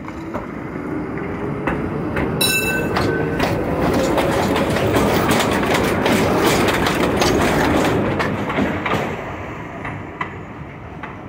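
V3A-93 articulated tram accelerating past at close range: the traction motor whine rises steadily in pitch, wheels clack over the rail joints, and the sound swells to a peak as the cars go by, then fades as the tram pulls away. A brief high-pitched tone sounds about two and a half seconds in.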